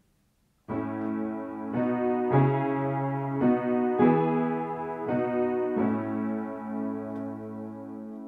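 Yamaha upright piano played slowly, starting about a second in: soft sustained chords struck about once a second. The last chord is held and left to ring and fade.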